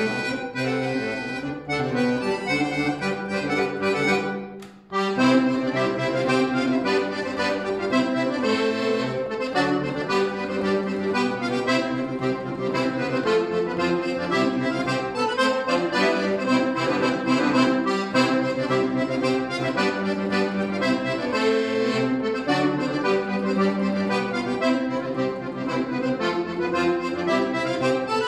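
Solo Scandalli piano accordion playing a busy passage of quick, dense notes, with a short pause about five seconds in before the playing picks up again.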